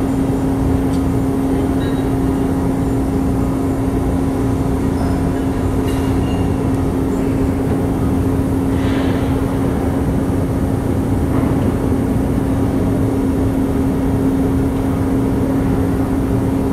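Steady, loud drone of heavy machinery: one constant hum over a low rumble, with no rise or fall.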